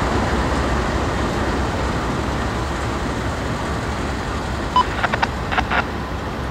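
Norfolk Southern freight train rolling past: a steady rumble of the cars' wheels on the rails that eases slightly, with a few short clicks near the end.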